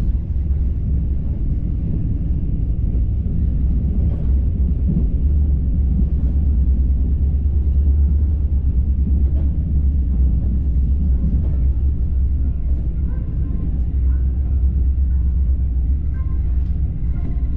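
Mugunghwa-ho passenger train running along the track, a steady loud low rumble, with faint high tones joining over it in the last few seconds.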